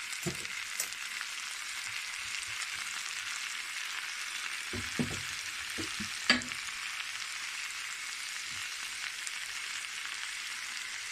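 Sliced potatoes, garlic and chopped wild mushrooms sizzling steadily in oil in a hot frying pan, with a few short knocks in the middle, the sharpest about six seconds in.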